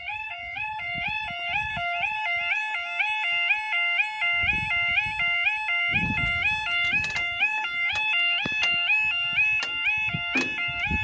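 UK level crossing audible warning alarm sounding: a steady two-tone yodel stepping between a lower and a higher pitch about twice a second, the signal that the barriers are about to come down for an approaching train. Bursts of low rumble come and go partway through.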